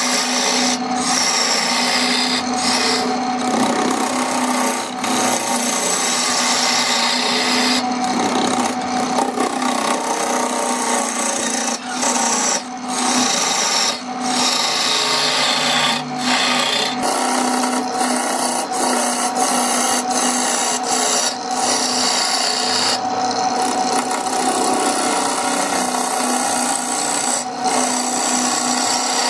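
Wood lathe spinning a blank glued up from small pieces of wood while a turning tool cuts into it: a continuous scraping hiss of the tool on the wood over a steady hum, broken by short gaps as the tool eases off the cut.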